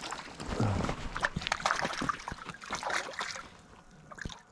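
Water splashing and sloshing as a hooked trout is played at the surface, in quick irregular splashes that die down near the end.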